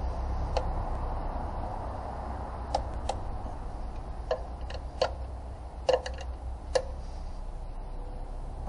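Ratchet wrench being worked on a bolt on top of the engine: short metallic clicks at irregular intervals, several in quick succession around the middle, over a low steady hum.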